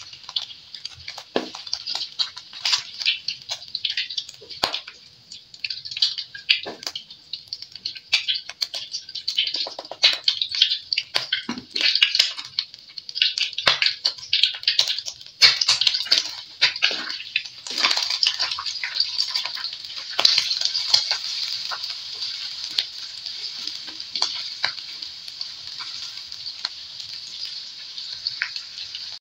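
Cooking in a non-stick wok: a green slotted spatula and a wooden spoon knock and scrape against the pan as food is moved around. From about two-thirds of the way in, a steady sizzle takes over as sliced onions, shallots and chillies fry in hot oil.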